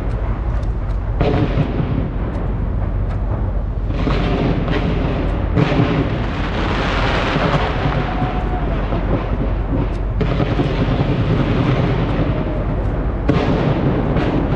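A fireworks display going off continuously at close range: deep booms of shells bursting mixed with many sharp bangs and dense crackling, swelling into a thicker stretch of crackle about six to eight seconds in.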